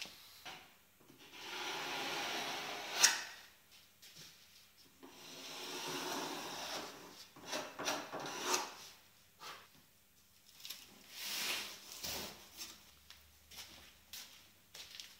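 An orange-handled hand tool scraping along the edge of a plywood panel in three long strokes, with sharp knocks and taps of wood being handled between them.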